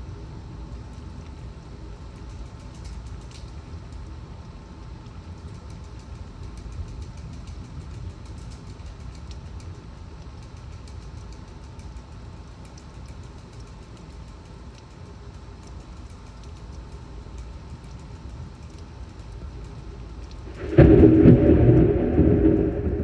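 Torrential rain falling steadily through a severe thunderstorm, then a sudden loud clap of thunder near the end that keeps rumbling.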